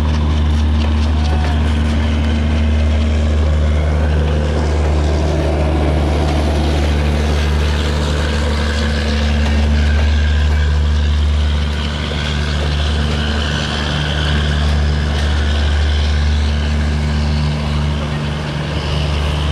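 WDM-3A diesel-electric locomotive idling, a loud steady low drone with a constant hum.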